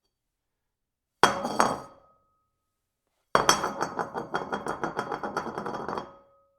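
Porcelain cookie jar dropped onto a hard surface: a sharp clink with one bounce, ringing briefly without breaking. About two seconds later it rattles in rapid, close-spaced clinks for about three seconds, then stops with a short ring.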